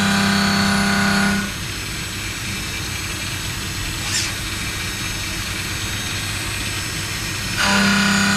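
WFL M60 MillTurn machine tool at work machining a crankshaft: a steady pitched machining hum that stops about a second and a half in, leaving a steady mechanical noise with one brief sweep in the middle, and the hum starts again near the end.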